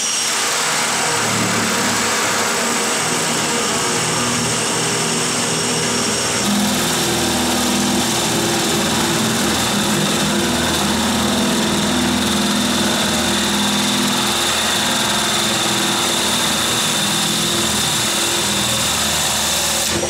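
Drill driver boring a 32 mm spade bit through a timber door, the motor running steadily under load as the bit cuts. A higher whine joins about six and a half seconds in.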